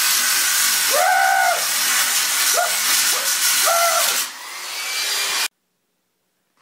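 Angle grinder grinding into the steel body of a Dodge Ram 1500 near the wheel arch, a loud steady hiss of disc on metal. The motor's whine rises and falls a few times as it is pressed on the metal. The sound dips about four seconds in, then stops abruptly about five and a half seconds in.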